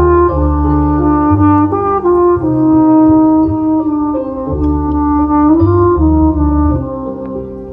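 Jazz flugelhorn playing a mellow melodic line of stepping and held notes, over plucked double bass notes.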